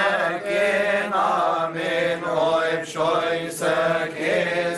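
Coptic Orthodox Christmas liturgy chant: voices singing long, ornamented melodic lines over a steady low held note.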